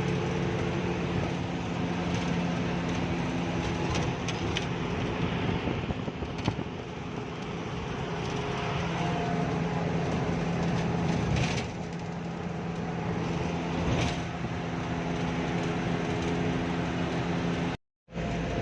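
An engine running steadily with a constant hum, a few short knocks over it; the sound cuts out for a moment near the end.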